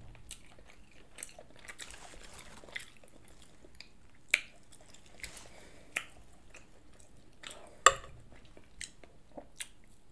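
A person eating: chewing and biting with short, sharp clicks and smacks scattered throughout, the loudest about four, six and eight seconds in.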